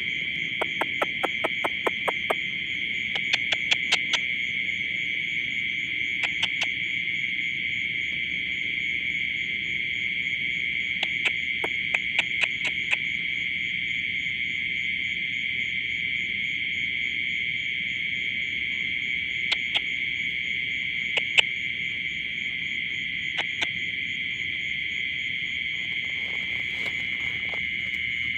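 Steady chorus of insects, a dense high buzzing with a faster pulsing tone above it, broken every few seconds by short runs of sharp clicks.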